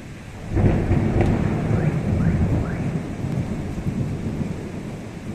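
Thunder: a sudden loud clap about half a second in that rolls on as a long, deep rumble, slowly fading.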